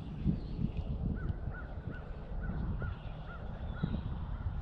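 A bird calling a quick, even series of about eight short notes, two or three a second, over steady wind rumble on the microphone.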